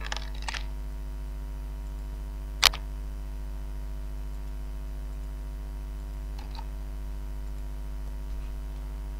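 Steady electrical mains hum. One sharp computer mouse click comes about two and a half seconds in, and a couple of faint clicks follow a few seconds later.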